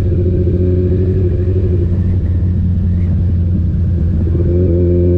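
Sport motorcycle engine running steadily while riding, its note rising slightly about four and a half seconds in as the bike speeds up.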